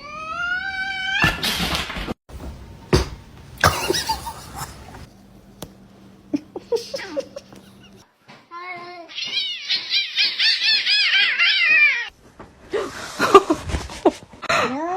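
Cat meowing and yowling: a rising call at the start, then scattered knocks and scuffling, and later a rapid run of short high calls lasting a few seconds.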